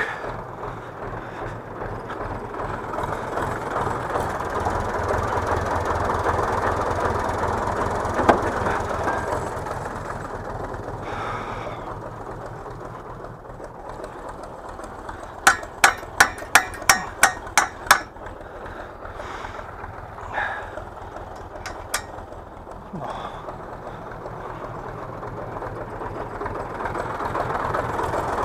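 Tractor engine running steadily, with a quick run of about nine hammer blows on a rusty steel implement fitting about halfway through, and a few single knocks before and after.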